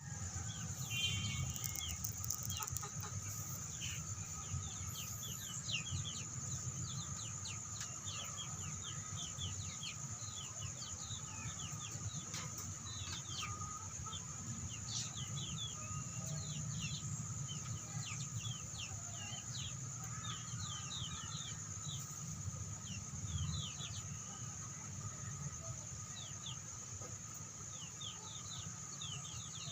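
A flock of native village chickens (ayam kampung) clucking, with many short, high, falling peeps all through. A steady high whine and a low rumble run underneath.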